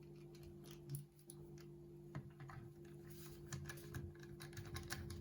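Faint small plastic clicks and taps as the cover of an Amazon Echo 3rd-generation smart speaker is handled and pressed back into place, the clicks coming thicker in the second half, over a steady low hum.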